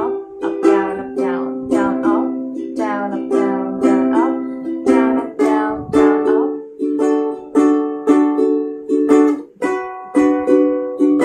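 Ukulele strummed in a steady down, down, up, up, down, up, down pattern, with the chord changing about three times.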